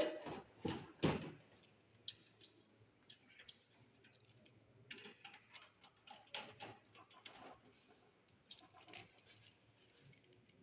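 Screws being handled and fitted to secure a power supply unit in a desktop computer case: scattered light metallic clicks and ticks, with a few louder knocks about a second in.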